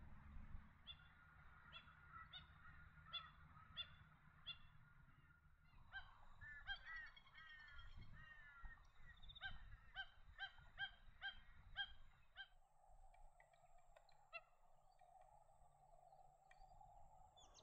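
Faint, repeated short honking calls of waterbirds, one about every two-thirds of a second, with a faster run of overlapping calls in the middle.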